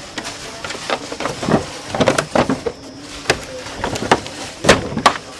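Irregular clicks and knocks, a few a second, of hands and small tools working on a motorbike's parts, with the loudest clatter about two seconds in and again near the end.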